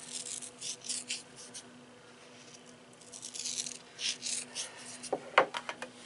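Salt being shaken over raw chicken thighs in a roasting pan: several short, hissy bursts of falling grains. These are followed by a few clicks and a sharp knock about five seconds in.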